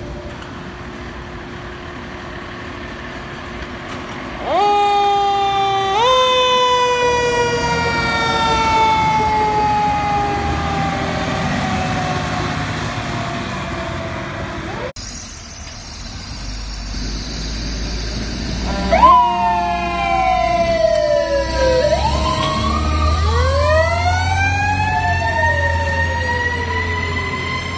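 Fire apparatus sirens. About four seconds in, a siren winds up quickly and then falls slowly over some nine seconds. After a cut it rises again, and near the end two siren tones cross, one falling while the other climbs, over the low rumble of a truck engine.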